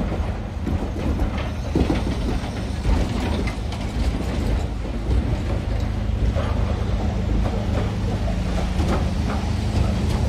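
British Railways Mark 1 passenger coaches rolling slowly past: a steady low rumble with scattered clicks and knocks from the wheels and running gear.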